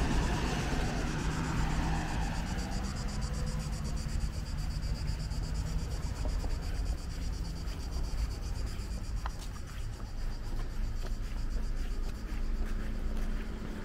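A motor vehicle passes and fades away, leaving a steady low engine hum from traffic, with a faint high buzz and a few light ticks over it.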